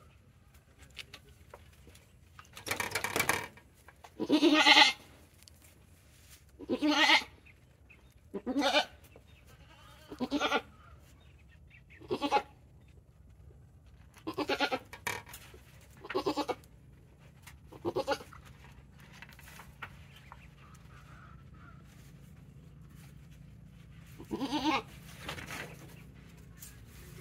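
Goat bleating repeatedly: about eleven calls, one every one to two seconds, then a pause of some six seconds before two more near the end.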